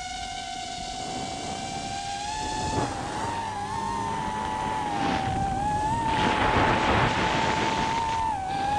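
A racing drone's motors whining at a steady high pitch that wavers slightly as it manoeuvres. Rushing noise surges in around three, five and six to seven seconds in.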